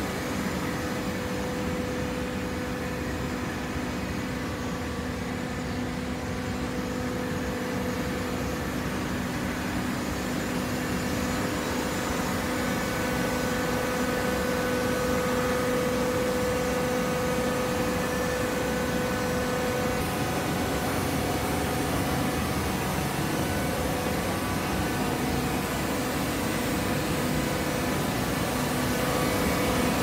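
TCM horizontal hydraulic baler running: a steady machine hum with a held whine and no separate knocks, growing a little louder near the end.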